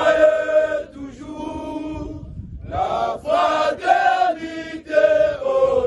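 A group of scouts singing their movement's hymn together. Loud held phrases open, a softer stretch follows about a second in, and the singing swells again just before three seconds.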